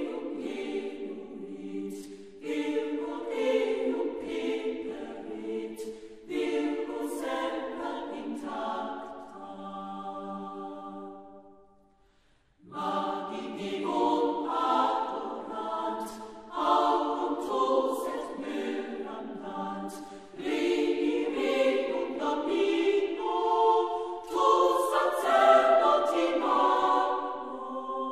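A choir singing in harmony in long held phrases, with a brief break about twelve seconds in before the singing resumes.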